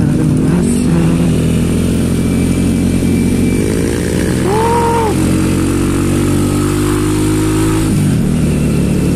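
Small motorcycle engine running under way, heard from the rider's seat with wind and road noise; its pitch glides up and down, then drops about eight seconds in as the revs fall. A brief tone sounds a little before the middle.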